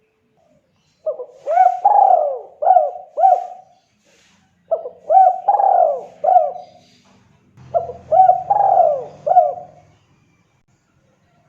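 Spotted dove (tekukur) cooing: three phrases of its repeated hooked coos, each a couple of seconds long, with short pauses between them.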